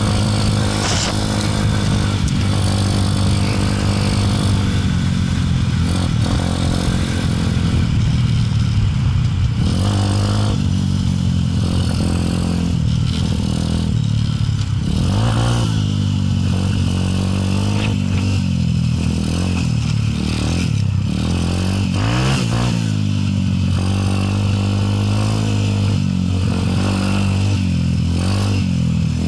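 Motorcycle engine running under way as the bike rides along, its pitch dipping and climbing several times with throttle and gear changes, over a steady rush of noise.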